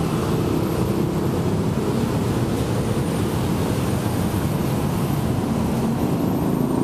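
Steady, loud rumble of heavy road traffic close by, a large engine running under the general traffic noise.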